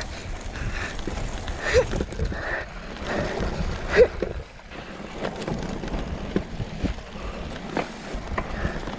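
Rumbling wind and handling noise on a handheld camera's microphone, broken by scattered knocks and a few short sharp sounds, the loudest about four seconds in.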